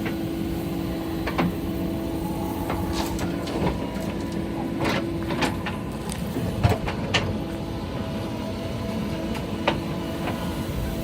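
JCB 3DX backhoe loader's diesel engine running steadily, with a run of sharp knocks around the middle and one more near the end.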